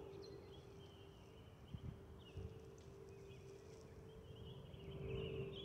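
Airbus A320's fuel over-pressure protector (FOPP) vents under the wings whistling as it passes overhead on approach: two close, steady tones over a low rumble, swelling near the end. Birds chirp over it.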